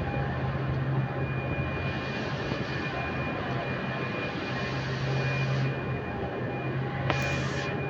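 Steady drone of a running machine, with a low hum and a thin high whine, and a short hiss about seven seconds in.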